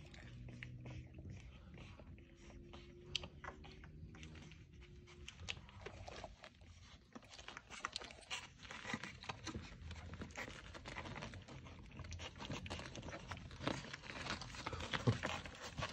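French bulldog puppies suckling at their mother's teats: a faint, continuous run of small wet smacking and sucking clicks. A low hum runs under it for the first five seconds or so.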